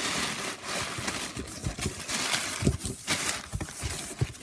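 Cardboard box being handled and tilted while plastic wrapping rustles, with repeated scrapes and knocks of hands and box as plush toys are pulled out.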